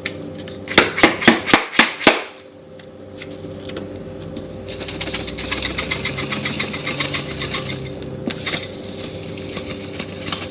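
Seasoning shaker bottle of Crazy Garlic knocked and shaken hard because the seasoning won't come out: about six sharp knocks in the first two seconds, then a fast, even rattle of shaking from about five seconds in to about eight.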